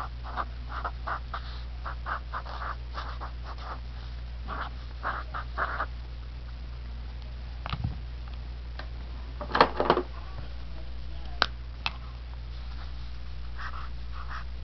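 Marker writing on sketchbook paper: a run of short scratchy strokes, then a few sharp clicks and knocks, the loudest a cluster about ten seconds in. A steady low hum runs underneath.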